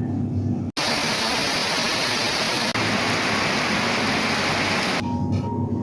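Heavy rain falling as a steady, even hiss. It cuts in suddenly about a second in and cuts off just as suddenly near the end, where background music takes over.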